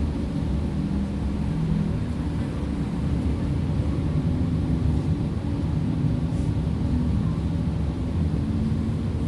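Inside a moving PESA Fokstrot low-floor tram: a steady low rumble of wheels on rails with a hum from the drive underneath.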